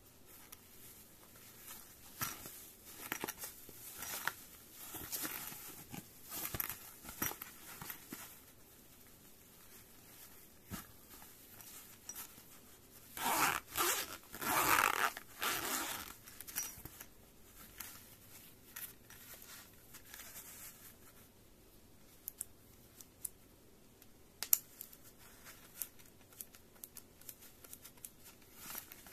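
Zipper on a round, zippered earphone carrying case being pulled open in a few quick rasping strokes about halfway through, amid rustling and small clicks of hands handling the case.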